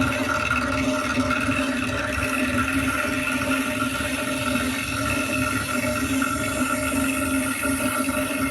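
Large DJ sound system playing very loud, overloading the recording into a steady, distorted rush of noise with no clear beat.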